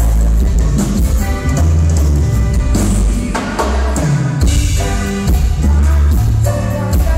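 Live band playing loud amplified music: button accordion over electric bass, drum kit and congas, with a steady drum beat.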